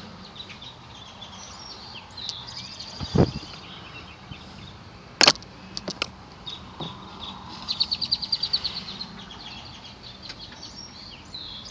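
Birds chirping in the background, with a fast twittering trill about eight seconds in. A dull thump about three seconds in and a few sharp clicks a couple of seconds later.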